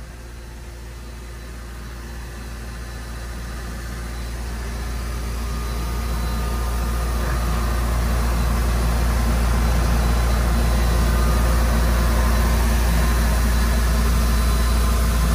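Dry ice blasting rig running steadily: a deep machine hum under a broad rushing hiss. It grows louder over the first several seconds, then holds.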